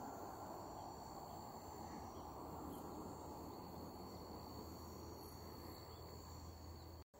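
Faint outdoor summer ambience: a steady, high insect drone, as of crickets, over a low, even background noise. The sound drops out for an instant near the end.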